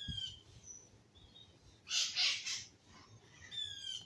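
Wild birds calling: a short falling whistled note near the start and another near the end, with harsh, scratchy calls about two seconds in.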